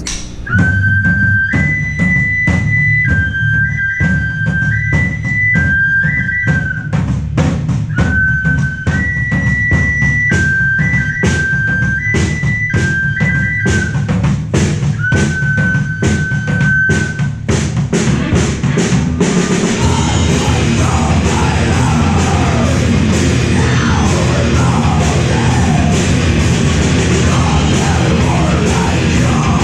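Metal band rehearsing: a drum kit beats steadily under a harmonica playing long held notes that step back and forth between two pitches. About 19 seconds in, distorted electric guitars and bass come in with the drums.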